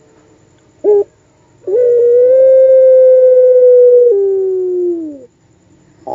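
Puter pelung dove calling: a short note about a second in, then one long, level call held for over two seconds that drops into a lower, falling note at its end. This is the long, wolf-like call that the breed is kept for.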